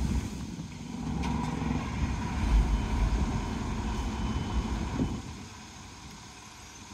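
Heavy diesel engine running steadily with a low rumble that eases off about five seconds in.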